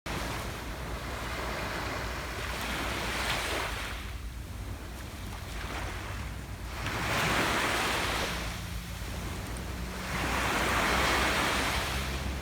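Ocean waves breaking on a beach: surges of surf about every three to four seconds, three in all, over a steady low rumble of the sea.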